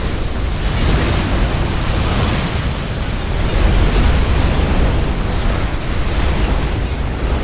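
Strong tornado wind blowing and buffeting the microphone, a deep rumble with a hiss over it that swells and eases.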